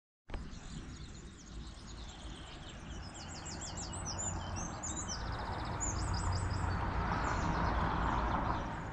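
Birds singing, with repeated short chirps, over a steady noisy outdoor rumble that slowly grows louder.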